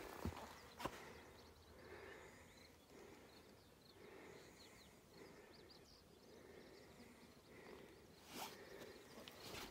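Near silence: faint outdoor ambience with faint, scattered bird chirps. A few footsteps on dry, rocky ground sound near the start and again near the end.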